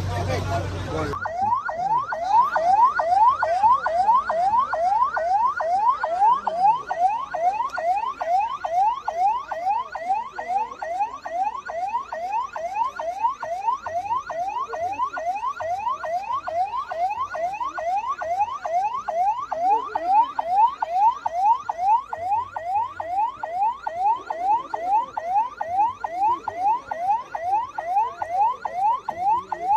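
Electronic siren sounding a fast yelp: a tone that sweeps up and snaps back down, a couple of times a second without change. It cuts in abruptly about a second in, replacing crowd talk.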